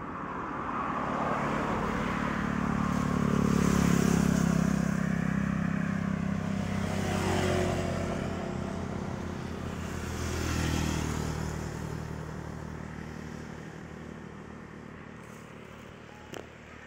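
Motor vehicles on a road passing by one after another, a motorbike among them, each engine swelling and then falling in pitch as it goes past; the loudest pass comes about four seconds in, with two more after it, then the engines fade.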